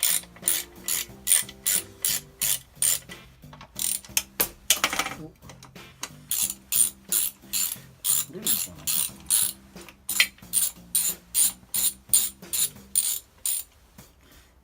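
Socket ratchet wrench clicking at about three clicks a second, with a couple of short breaks, as an 8 mm bolt is turned out.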